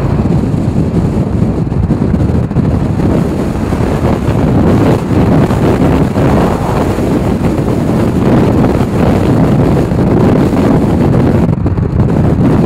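Loud gusty wind rushing over the microphone, mixed with the engine and road noise of a moving car.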